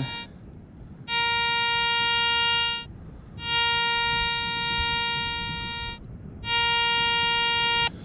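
Garrett ACE 400 metal detector sounding a steady mid-pitched tone in pinpoint mode, held three times for a second or two each with short breaks between. The coil is right on top of a buried target, which turns out to be a bottle cap.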